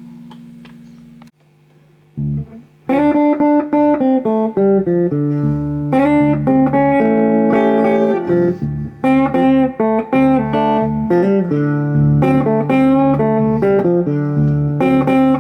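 Harley Benton HB35 semi-hollow electric guitar played through a Fender Sidekick Reverb 25 solid-state practice amp, set with a little gain, heavy bass and a touch of spring reverb. A chord rings and fades in the first second, then after a short pause the guitar plays bass-heavy blues lines from about three seconds in.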